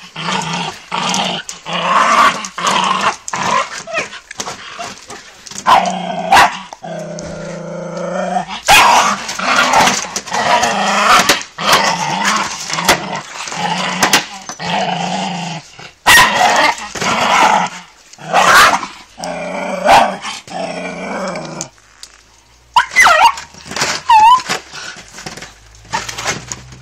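Jagdterrier barking and growling at a hare hidden in a crate, in rapid runs of sharp barks, with a longer drawn-out growl about seven seconds in.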